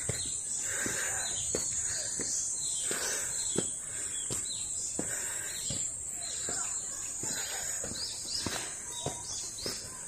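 Footsteps on a stone-paved forest path, about one step every 0.7 s. A steady high insect drone runs under them, and birds chirp a few times near the end.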